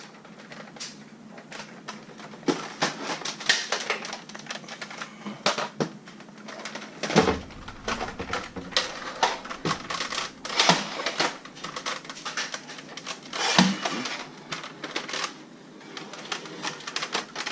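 Irregular clicks and knocks of handling, with louder thumps about seven and about thirteen and a half seconds in.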